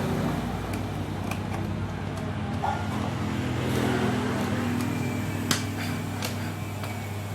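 Steady low mechanical hum, like road traffic or a running motor nearby, with a few light clicks and taps from small parts being handled; the sharpest click comes about five and a half seconds in.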